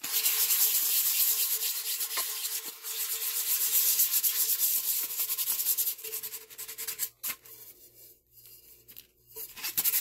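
Hand sanding with sandpaper on a cured epoxy-and-glitter coat on a stainless steel tumbler: quick scratchy back-and-forth strokes that run steadily for about six seconds, then give way to a few short strokes. This is the step of knocking down sharp, jagged glitter pieces before the final epoxy coat.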